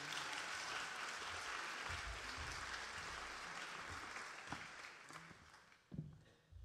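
Audience applauding, holding steady for about five seconds and then fading away. A couple of dull thumps come near the end.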